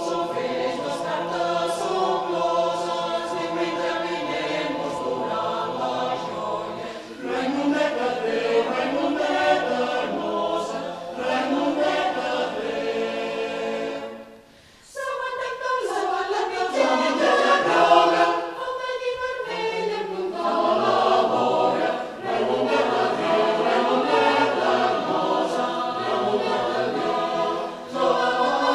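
Mixed chamber choir of men's and women's voices singing a Catalan folk song arrangement a cappella, with a short rest about halfway through before the voices come back in.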